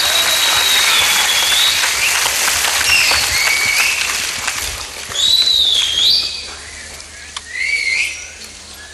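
Studio audience applauding and cheering, with several shrill whistles sliding up and down over it. The applause dies down after about six seconds, while a couple of whistles carry on.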